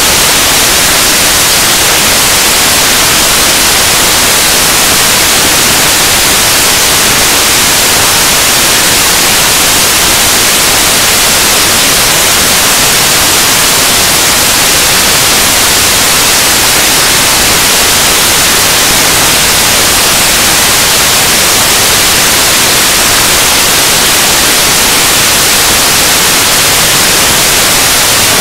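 Loud, steady static hiss like white noise, unchanging throughout, with no voice to be heard.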